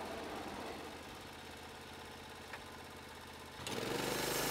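A low steady mechanical hum; about three and a half seconds in, a louder small motor starts and runs with a steady whine.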